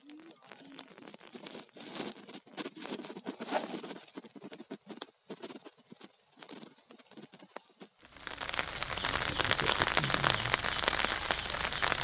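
Burning JCB backhoe crackling and popping in irregular sharp clicks. About eight seconds in this gives way to a louder, steady hiss of rain, with a quick run of high chirps near the end.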